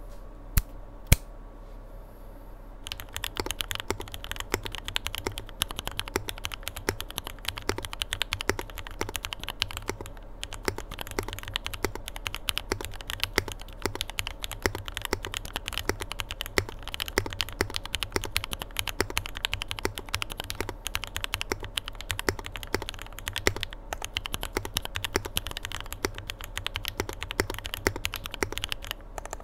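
Continuous fast typing on a Think6.5 v2 gasket-mount mechanical keyboard with lubed, filmed Marshmallow switches on an FR4 plate with Poron plate foam, under CMK Modo 2 keycaps: a dense clatter of keystrokes with a few short pauses. Two sharp single clicks come first, and the typing starts about three seconds in.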